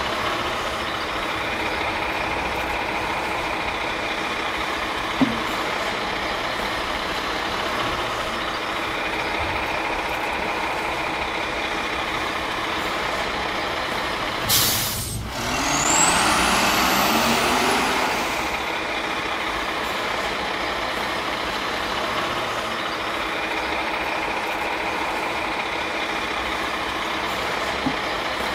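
Garbage truck engine running steadily. About halfway there is a short sharp burst of air like an air brake, then the engine revs up for about three seconds and settles back. Two light clicks are heard, one early and one near the end.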